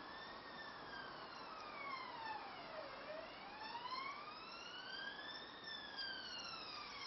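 Faint wailing siren of an emergency vehicle, its pitch slowly rising and falling, peaking twice about five seconds apart.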